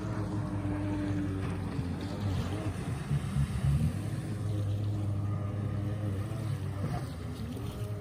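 Jet ski engine running at speed, a steady hum whose pitch bends up and down a couple of times as it turns, loudest around the middle.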